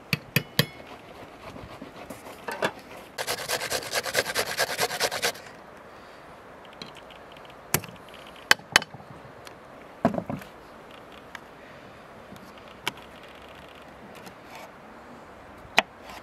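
Kitchen work sounds: about two seconds of rapid, rhythmic scraping, then scattered sharp knocks and clicks with one heavier thump. Near the end comes a sharp tap of a knife on a wooden cutting board.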